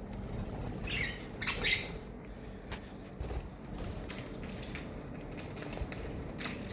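Budgies giving a few short squawks and chirps, the loudest about a second and a half in, with scattered light clicks and taps around them.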